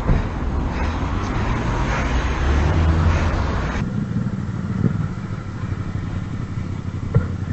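Motorcycle engine running with wind and road noise; the hiss cuts off suddenly about four seconds in, leaving a lower engine rumble, and there is one sharp click near the end.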